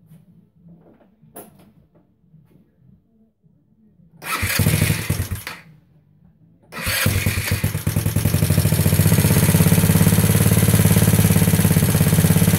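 Big-bore GY6 four-stroke single-cylinder scooter engine being started cold on its automatic choke. A first try about four seconds in runs briefly and dies. About seven seconds in it catches and settles into a steady, even running.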